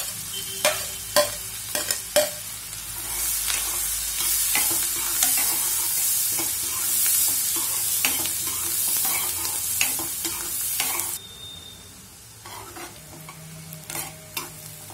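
Chopped onion sizzling in hot oil and butter with cumin seeds in a kadhai, stirred with a spatula that scrapes and clicks against the pan. The sizzle drops away suddenly about eleven seconds in, leaving quieter scraping.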